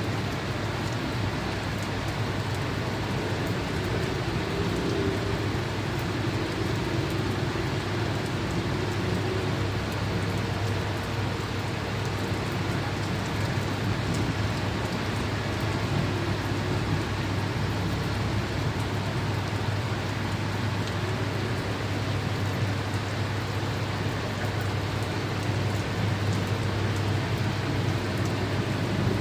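Steady rain falling, a continuous even hiss with a steady low drone beneath it.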